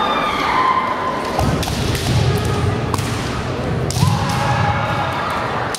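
Kendo bout: sharp knocks of bamboo shinai and thuds of bare feet stamping on a wooden floor, with the fighters' long drawn-out kiai shouts early on and again about four seconds in.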